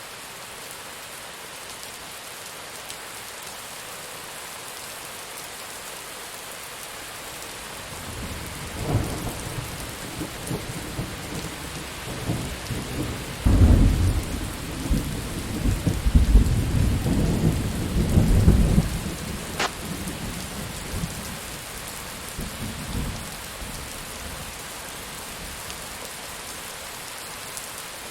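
Steady rain with a thunderclap. About a third of the way in a low rumble builds, then breaks into a loud rolling peal that dies away before the end, while the rain goes on.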